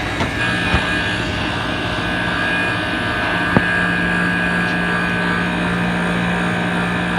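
Commercial kitchen machinery running: a steady mechanical drone with a low hum and a higher whine held at constant pitch. The hum steps slightly lower about three seconds in, and there is one sharp click.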